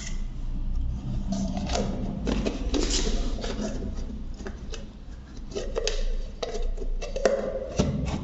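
Irregular scraping, rubbing and clicking as a rusty metal hand tool is worked on to remove the rust, over a low steady rumble.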